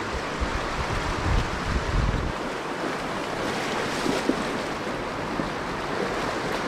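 Fast shallow river water rushing over a rocky riffle: a steady, even hiss. Wind buffets the microphone with a low rumble for about the first two seconds.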